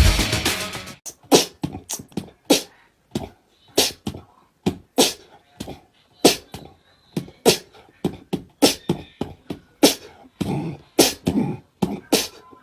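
Music cuts off about a second in, followed by a rhythmic beat of short, sharp percussive hits: a strong one about every second and a quarter with lighter ones between.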